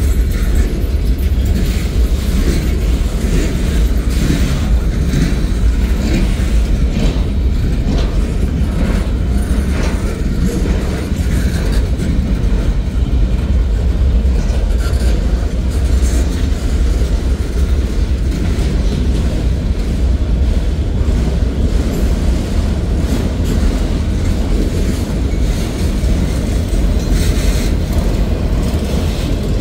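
Freight train cars rolling past close by: a steady, heavy rumble of steel wheels on rail, with scattered clicks as wheels pass over the rail joints.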